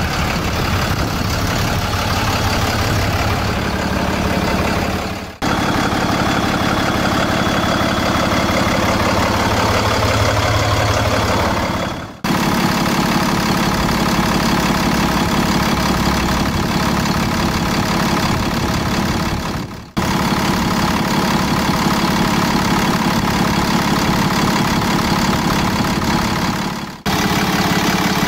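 PACCAR PX-6 six-cylinder diesel truck engine idling steadily, in several short takes, each fading out and cutting straight back in.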